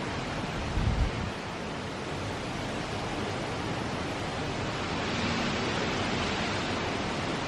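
Hurricane-force wind with rain, a steady rush of noise that swells a little about five seconds in as a gust builds, with a brief low thump about a second in.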